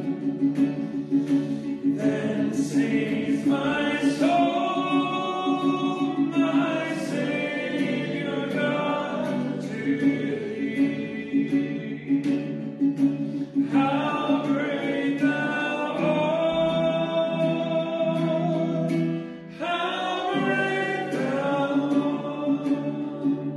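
Voices singing a hymn in phrases over steady, sustained instrumental accompaniment, with a brief break between lines about three-quarters of the way through.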